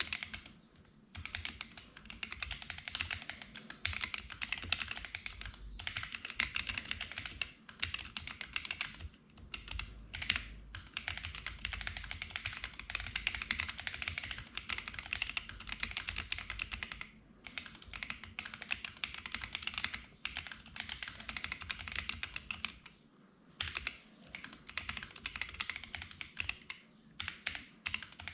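Continuous typing on a Sofle v2 split mechanical keyboard with Gazzew U4T Boba tactile switches lubed with Krytox 205g0 and Matt3o MT3 keycaps: a dense run of key clacks, broken by a few short pauses.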